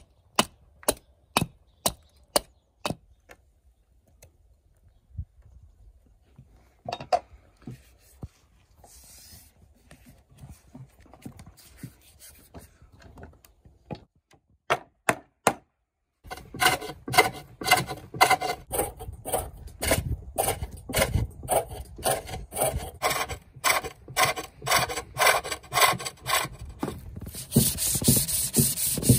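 Side axe striking a wooden bowl blank, a quick run of about nine sharp chops, then scattered knocks. About halfway through, a hook tool starts cutting the green wood bowl on a foot-powered pole lathe: a loud, fast, rhythmic rasping cut that grows hissier near the end as shavings fly.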